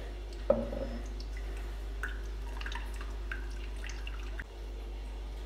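Salt water dripping through a damp cloth filter into a container below, in scattered single drops over a steady low hum, as newly hatched brine shrimp are strained out. A light knock comes about half a second in.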